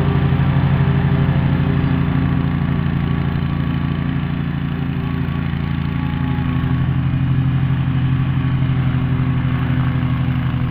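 Petrol lawnmower engine running steadily at a constant speed while mowing. Its loudness dips slightly in the middle and then picks up again.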